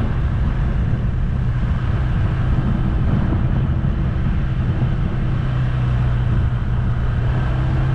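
Vehicle engine running steadily at a constant speed with a low, even hum, along with road noise.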